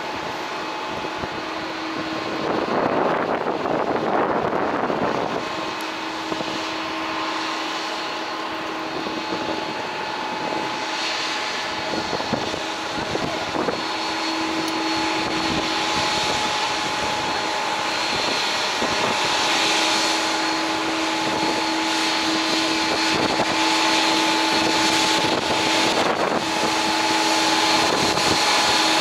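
Airliner jet engines across the airfield: a steady mixed rush of noise with held whining tones, slowly growing louder toward the end. A louder rush of noise comes about three seconds in and lasts a couple of seconds.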